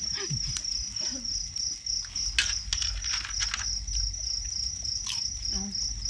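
A cricket chirping steadily: a high, pulsing trill at about four pulses a second. Short clicks and crackles sound over it, the sharpest about two and a half seconds in.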